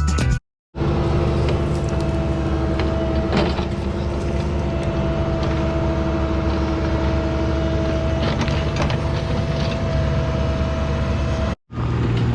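Excavator's diesel engine running steadily at a constant speed, with a steady whine held on top.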